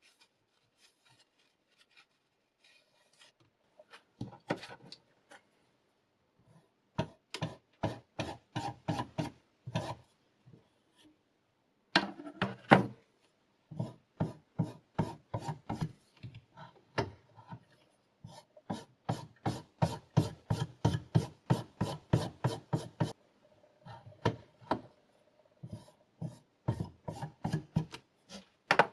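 A knife blade being stroked quickly back and forth on a diamond sharpening stone in a guided sharpener, with a rasping scrape on each stroke. The strokes come about four a second, in runs broken by short pauses.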